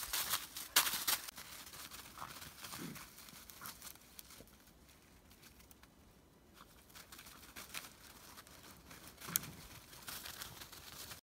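Dry fallen leaves rustling and crackling under Briard puppies' paws as they play, in irregular bursts, loudest about a second in and again near the end.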